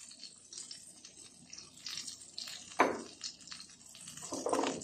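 Melted butter sizzling and crackling softly in a frying pan as minced garlic is tipped in, with two louder clunks, one about three seconds in and one near the end.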